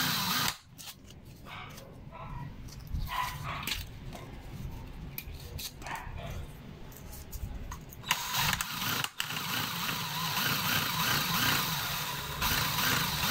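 Cordless drill spinning a motorcycle engine valve against hand-held sandpaper to scour off carbon. It stops about half a second in, leaving several seconds of light metal clicks as the valve is handled and re-set in the chuck. The drill starts again about eight seconds in, stops for a moment, and runs on.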